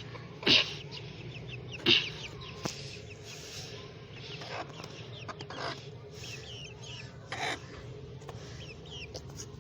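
Rooster clucking in a few short calls, the two loudest about half a second and two seconds in, over a steady low hum and faint high chirping.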